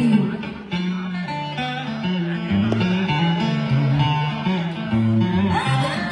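Guitar playing a vọng cổ instrumental interlude between the singer's phrases, a sliding melody line over sustained bass notes.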